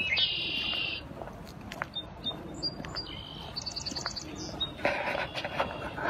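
Wild songbirds singing: a fast high trill right at the start, scattered short chirps, and another quick run of high notes about midway. A brief broader rustling noise comes near the end.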